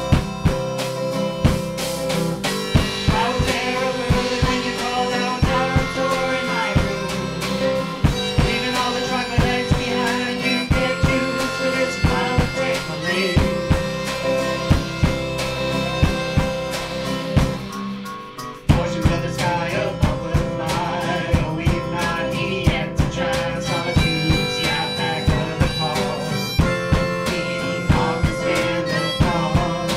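Live band playing: harmonica lead over strummed acoustic guitar and a drum kit keeping a steady beat. A little past the middle the music drops away for a moment, then the band comes back in on a loud hit.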